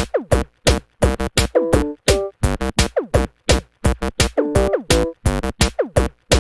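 Electronic music: a choppy drum-machine loop of short, sharply cut hits, some dropping in pitch, with short stepped synth notes between them and brief silences separating each sound.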